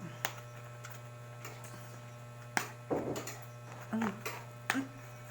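Steady low electrical hum, with scattered clicks and scrapes of a power bank's cardboard box and packaging being handled and pried open.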